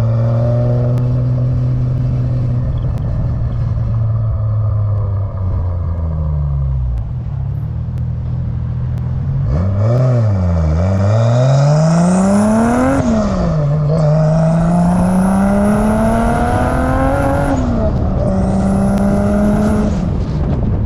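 Turbocharged 2JZ inline-six engine of a 1987 Toyota Supra pulling through the gears. The note holds steady, then falls; it rises and drops quickly about halfway through, then climbs twice with a sudden drop at each gear shift. It is running on low boost, about 7 psi from the wastegate spring alone.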